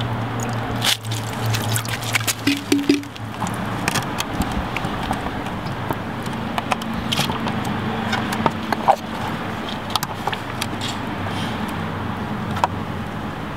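Photographic fixer poured from a plastic bottle into a plastic tray and sloshed over a glass ambrotype plate, with irregular splashes, clicks and knocks, busiest in the first few seconds. A steady low hum runs underneath.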